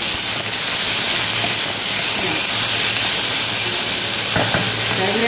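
Chopped onions sizzling in hot oil in a kadai, a steady frying hiss.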